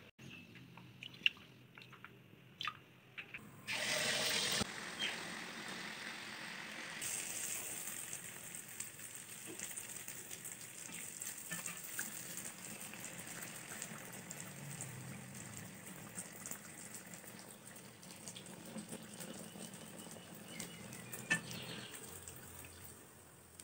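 Moong dal paniyaram batter deep-frying in hot oil in a kadai: a loud sizzle bursts up about four seconds in as the batter meets the oil, then settles into a steady frying sizzle that eases off near the end.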